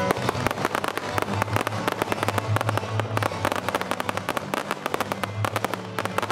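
Fireworks going off in a rapid, dense string of crackling pops, with a strong bang just at the start.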